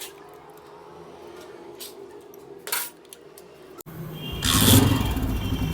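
A few light metallic clicks and clinks, then about four seconds in a Honda CG 125's air-cooled single-cylinder four-stroke engine starts with a loud burst and settles into a steady idle. Its tappets are freshly set to 0.08 mm after new push rods, and the engine noise is much reduced but not fully gone, since other parts are worn from running low on oil.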